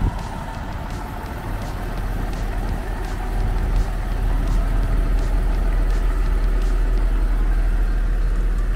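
Siemens Desiro diesel multiple unit's engine running steadily with a deep rumble.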